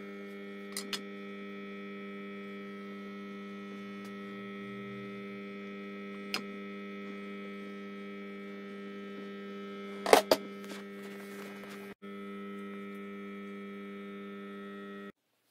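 Steady electrical hum, a low pitch with many overtones, broken by a few sharp knocks: two light ones about a second in, one about six seconds in, and a loud cluster about ten seconds in. The hum breaks off for an instant near twelve seconds.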